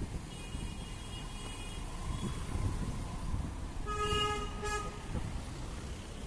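City road traffic running steadily, with vehicle horns honking: a faint, higher horn near the start, then a louder horn sounding twice in quick succession about four seconds in.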